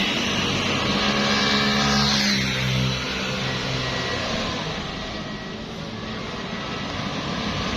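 A large bus driving past with its engine running, loudest in the first three seconds and then fading away.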